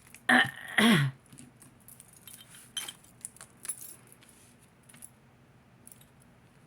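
Small metal jewelry clinking and jingling as it is handled, a scatter of light clicks and jangles. Near the start a person's voice gives a short two-part hum with falling pitch, the loudest sound.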